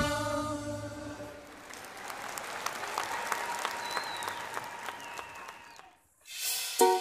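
A song fades out, followed by a few seconds of applause. It stops briefly, and a new plucked-string tune begins near the end.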